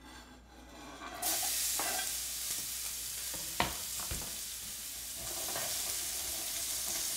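Chopped peppers dropped into hot oil in a frying pan, sizzling steadily; the sizzle starts suddenly about a second in. A sharp clack against the pan comes midway.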